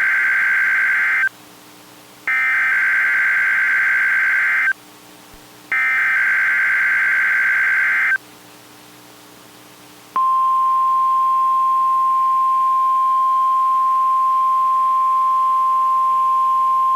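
NOAA Weather Radio SAME alert header: three loud, harsh, buzzing data-tone bursts, each about two and a half seconds long with a second's gap between them. After a two-second pause, about ten seconds in, the steady single-pitch 1050 Hz warning alarm tone begins and holds, signalling a broadcast alert, here the weekly test.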